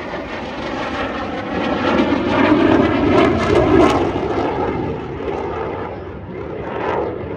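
Blue Angels F/A-18 Super Hornet jets flying past, their jet engine noise swelling to its loudest around three seconds in, then fading.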